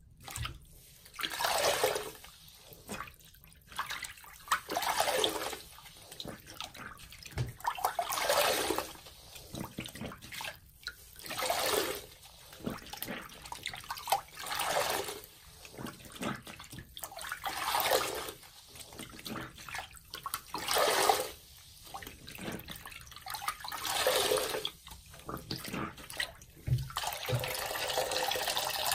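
A large water-soaked grout sponge squeezed over and over in a sink of water, each squeeze a rush of water splashing into the basin, about one every three seconds. Near the end the water streams more steadily from the wrung sponge.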